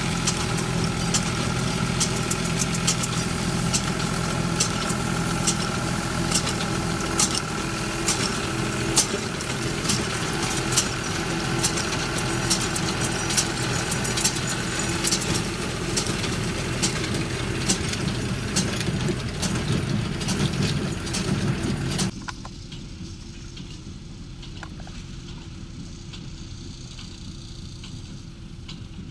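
Tractor engine running steadily while driving a small square hay baler, with frequent sharp clicks and rattles from the baler's mechanism. About 22 seconds in, the sound drops abruptly to a much quieter background.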